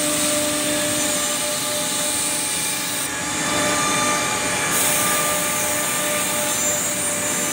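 CNC tenoning machine running on wooden rails: a steady whine of its motors over the hiss of cutting and workshop noise.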